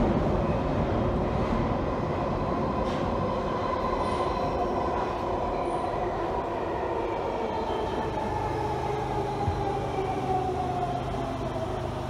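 London Underground 1996-stock Jubilee Line train running through a tunnel, heard from inside the carriage: steady rumble and rail noise with a whine that falls slowly in pitch as the train slows down. A low steady hum joins about two-thirds of the way through.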